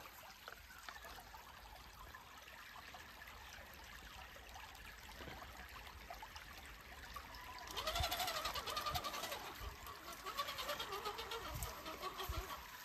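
Creek water trickling, then from about eight seconds in an RC 6x6 crawler truck's electric motor and gearing whining in short spurts of throttle, the pitch rising and falling.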